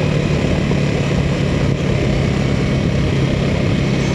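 Motorcycle engine running steadily at low revs, its tone dropping slightly in pitch about halfway through, over a dense low rumble.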